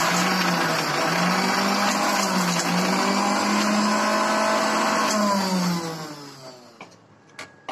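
Electric mixer grinder running at speed, churning desi ghee with ice cubes in its steel jar, then switched off about five seconds in, its motor hum falling in pitch as it winds down.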